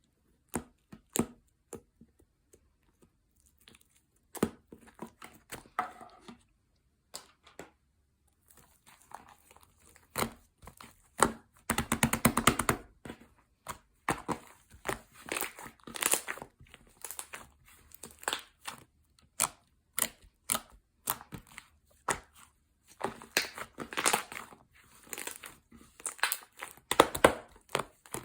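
Slime being squished, poked and stretched by hand, giving irregular sticky clicks, pops and crackles. The crackling comes in dense runs about halfway through and again near the end.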